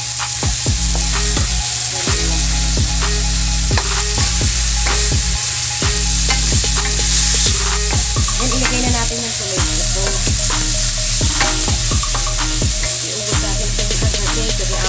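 Carrot strips, tomato, onion and garlic sizzling in oil in a metal wok, stirred with a spatula that scrapes and knocks against the pan many times.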